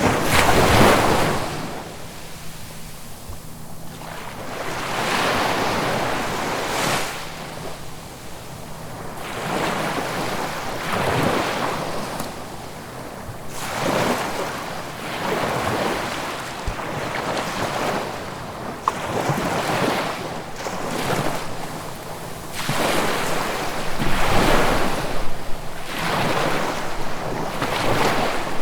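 Ocean waves breaking and washing ashore, the surf swelling and easing in repeated surges every few seconds, the loudest about a second in.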